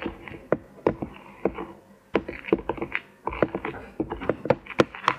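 A spoon stirring dry flour in a plastic bowl. It makes quick, irregular clicks and scrapes as it knocks and drags against the bowl's sides.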